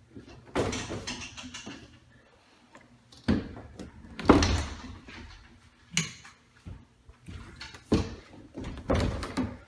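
Interior house doors being handled: about six separate knocks and thumps, the loudest about four seconds in.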